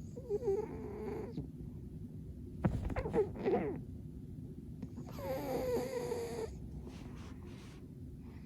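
A sleeping domestic cat snoring: three separate snores a couple of seconds apart, each with a low 'puu' note. The last one is the longest.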